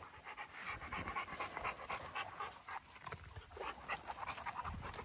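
A dog panting in quick, even breaths.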